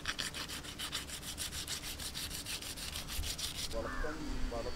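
Knife scraping scales off a large barramundi (kalanchi), in quick, even strokes several times a second; the scraping stops suddenly near the end.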